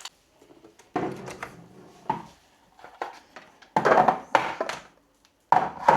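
Clattering and knocks from tools being handled and set down, in three short bouts: about a second in, around four seconds, and near the end.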